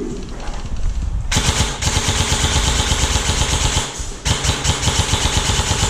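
Airsoft electric gun firing full-auto in two long bursts, a rapid even chatter that starts about a second in and breaks briefly about four seconds in before resuming.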